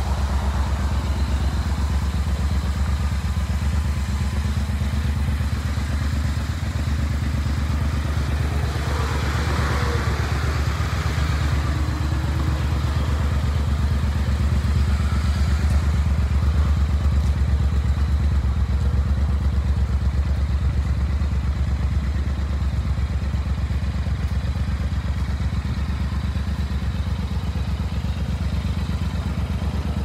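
Triumph Thruxton R 1200's 1200 cc parallel-twin engine idling steadily, a deep even exhaust note with no revs.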